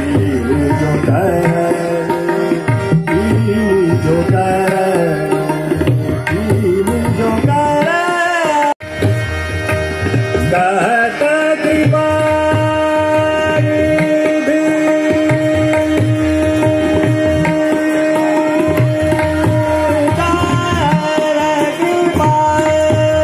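Hindustani classical vocal in raag Hansdhwani, accompanied by harmonium and tabla. The sound cuts out sharply for a moment about nine seconds in; after that a long note is held for several seconds over the running tabla.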